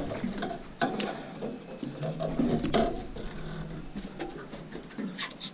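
Scattered knocks and clicks on a boat deck as a freshly netted fluke is handled in a landing net, with a faint murmur of voices behind.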